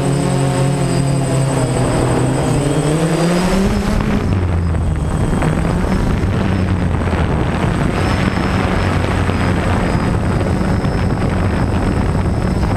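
DJI Phantom quadcopter's motors and propellers buzzing, picked up close by the GoPro on the drone's own frame. The pitch rises over the first three or four seconds, then drops to a lower, rougher hum, with a thin high whine above it.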